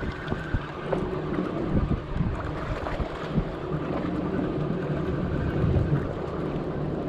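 Small boat's engine running steadily under way, with wind buffeting the microphone.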